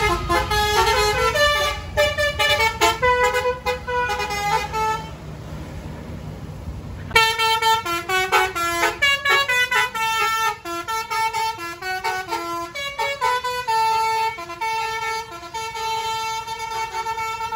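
Bus 'telolet' Basuri multi-tone musical horn playing a tune of quick stepped notes, stopping about five seconds in and starting a second, longer tune a couple of seconds later. A low engine rumble sits under the first tune.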